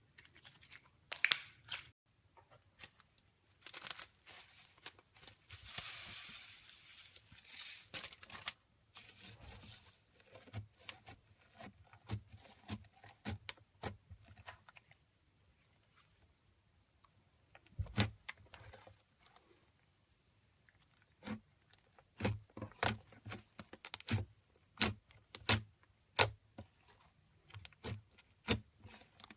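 Hands squeezing and stretching slime: a string of sticky clicks and pops, with a longer crackling, tearing stretch about six to eight seconds in.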